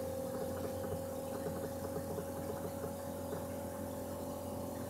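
Room tone: a steady hum with a faint hiss, with no distinct event.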